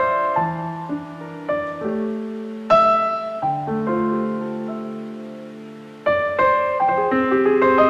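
Gentle background piano music: slow chords that are held and fade away, with new chords struck about three seconds in and again about six seconds in.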